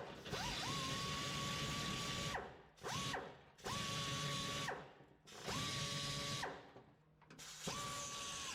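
A small grinder spinning metal-cleaning a weld in short runs: it whines up to a steady pitch, holds for a second or two, then winds down. It does this about five times, one run much shorter than the rest.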